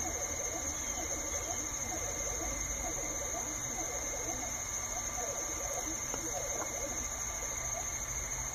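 Laser engraver at work, its stepper motors chirping in quick rising and falling pitches as the turntable and laser head make short back-and-forth engraving moves, over a steady high-pitched whine and a low hum.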